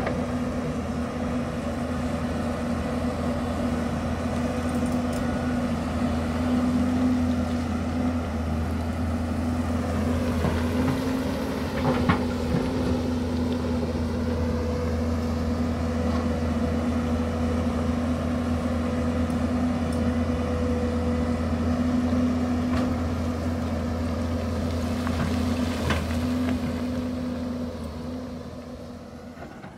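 Hyundai crawler excavator's diesel engine running steadily under work, with a few short knocks and clanks of the bucket and rock. The sound fades out near the end.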